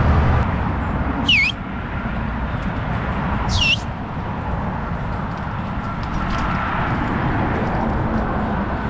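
Two short bird calls about two seconds apart, each sweeping down in pitch and then flicking up, over a steady low rumble.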